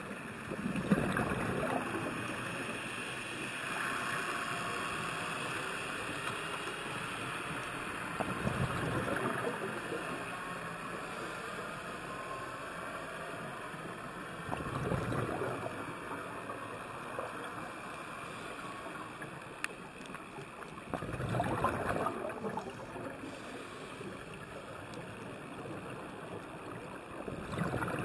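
Underwater sound picked up through a camera housing: a steady hiss with a rush of exhaled scuba bubbles about every six seconds.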